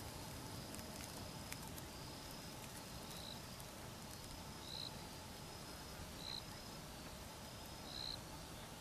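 Faint insects singing: a steady high thin trill with a short chirp repeating about every second and a half.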